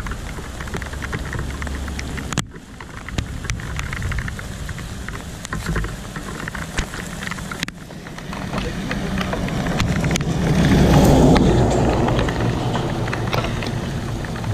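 Highway traffic passing on a wet road: tyre hiss and engine noise over a steady low rumble, with one vehicle swelling past about ten to twelve seconds in.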